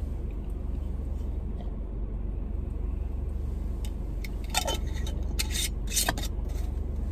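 Steady low hum of a car's engine and road noise heard inside the cabin while driving, with a few short clicks and rustles between about four and six seconds in.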